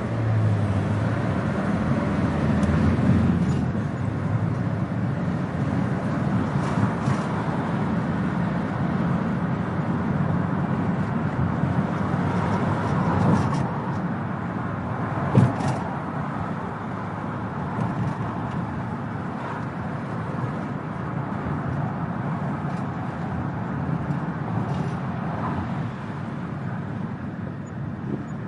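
Rattly vehicle exhaust running with a steady low drone, scattered light ticks and one sharp knock about halfway through.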